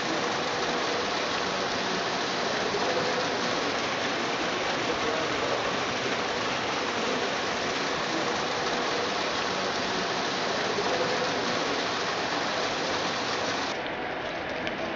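Steady, even rushing noise inside a railway tunnel under construction, with no separate events in it. Near the end it gives way to quieter open-air sound with light footsteps on gravel.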